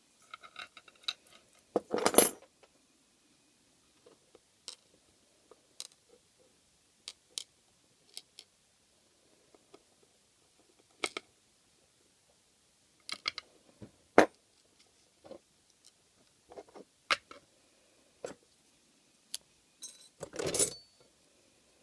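Small metallic clicks and clinks from hand work with lock picks and lock parts, spaced out with quiet between, with two louder metal rattles about two seconds in and near the end.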